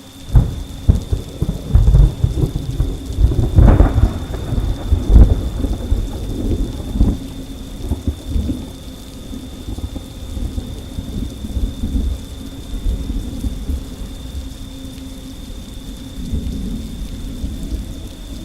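Thunder breaking suddenly, with several loud peaks in the first seven seconds, then rumbling away over steady rain.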